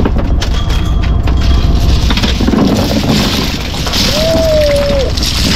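A fishing boat's engine runs steadily while the net's catch of shells, crabs, starfish and fish is dumped onto the deck. The shells rattle and clatter as they pour down, starting about two seconds in. A short squeal comes near the end.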